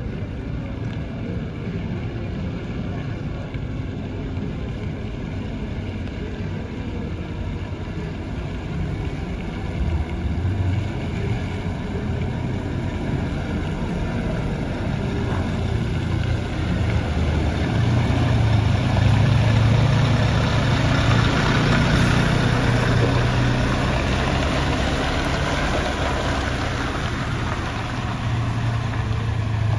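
Heavy truck diesel engine rumbling steadily, getting louder from about ten seconds in and loudest around two-thirds of the way through before easing off slightly, as of a truck running close by or pulling past.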